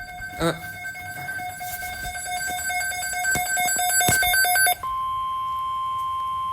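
NOAA weather radio (Midland WR-400) sounding its alert. First comes a two-tone electronic alarm with rapid clicks that grows louder. About five seconds in it switches abruptly to a single steady tone near 1 kHz, the weather radio warning alarm tone that comes before a broadcast statement.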